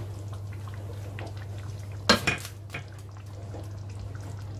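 A wooden spoon knocking and scraping against a glass baking dish as bow-tie pasta is spread out in it, with two sharp knocks close together about two seconds in. A low steady hum runs underneath.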